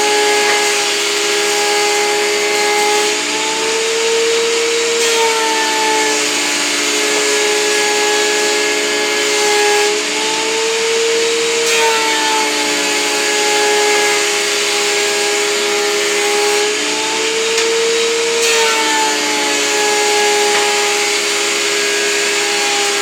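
WEN 6552 13-inch three-blade benchtop planer running together with a shop vacuum drawing off the chips, while 2x4 boards are planed. Their loud, steady motor whine shifts in pitch every six or seven seconds, dipping and recovering.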